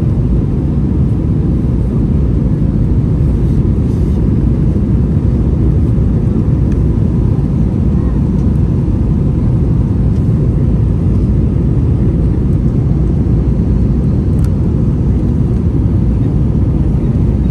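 Steady low roar inside an Airbus A321's passenger cabin in flight: airflow and IAE V2500 turbofan engine noise heard from a window seat, with one faint click late on.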